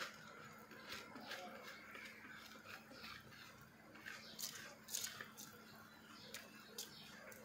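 Pot of spiced pulao water at the boil, with faint, irregular small bubbling pops and fizz. A steady low hum runs underneath.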